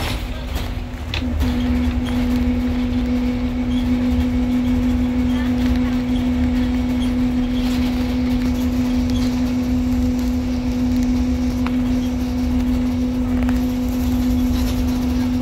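Cabin noise inside a running school bus: a low engine and road rumble under a constant steady hum.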